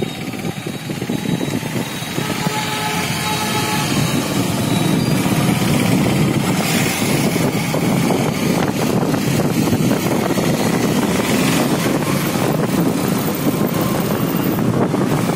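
Motorcycle running while being ridden along a road, a steady engine and riding noise that grows louder over the first four seconds.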